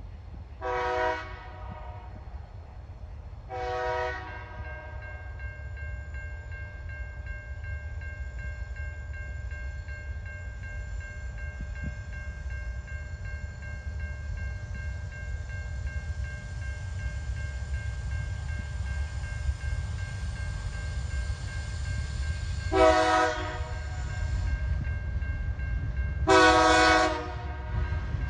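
Approaching TasRail TR-class diesel locomotives sounding their multi-note horn: two short blasts near the start and two longer ones near the end. Under them a low diesel engine rumble grows steadily louder as the train draws near.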